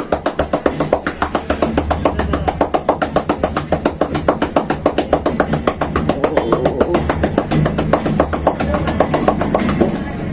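Rapid hand tapotement massage: the barber's hands strike the client's head or back in a fast, even rhythm of about seven sharp slaps a second, like drumming.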